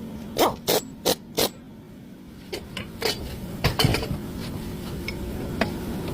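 A series of sharp knocks and clicks: four in quick succession, then several more at uneven intervals.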